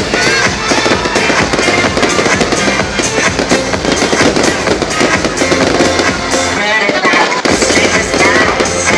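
Fireworks crackling and banging in dense succession, mixed with loud music.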